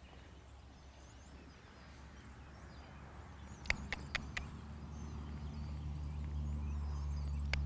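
Quiet outdoor ambience with faint bird chirps. About halfway through there is a quick run of four sharp clicks, and two more come near the end, over a low rumble that grows steadily louder.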